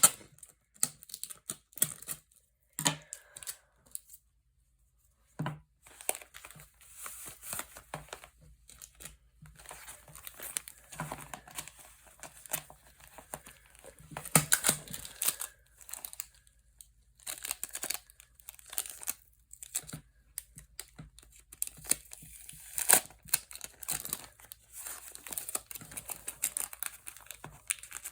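A taped paper pouch crinkling and rustling in the hands in irregular bursts of crackles as it is stuffed with filling, with a brief silent gap about four seconds in.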